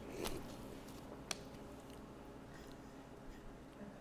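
Quiet eating at a table: a spoon and chopsticks working in a bowl of noodles, with two small clicks about a second apart.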